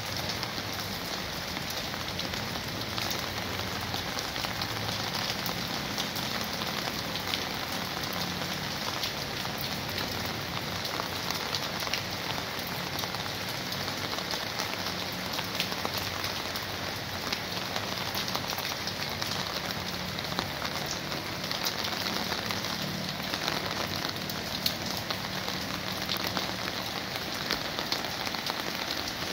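Steady rain falling on garden plants and hard ground: a dense, even patter of drops.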